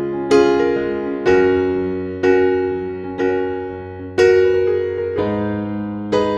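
Background music: slow electric piano chords, struck about once a second and each fading before the next.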